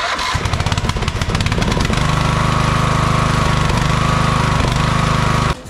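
A 2003 Craftsman mower's Briggs & Stratton overhead-valve engine starts up, its oil now at the right level after an overfill. It fires unevenly for about two seconds, then settles into steady running, and stops abruptly near the end.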